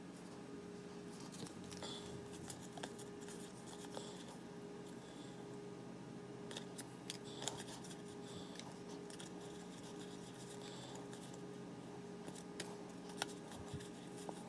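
Pokémon trading cards being handled and flipped through one by one, sliding and rubbing against each other with scattered small clicks and scrapes, over a steady faint hum.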